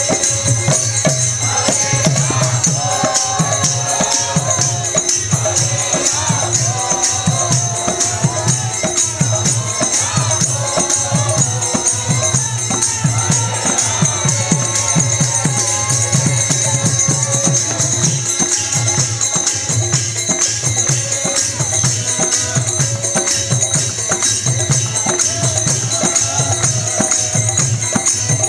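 Live kirtan music: voices chanting together over a harmonium, a mridanga drum beating a steady low pulse, and hand cymbals keeping up a constant bright jingle.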